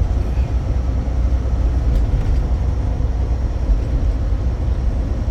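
Semi truck's diesel engine and road noise heard inside the cab while climbing a bridge: a steady low rumble.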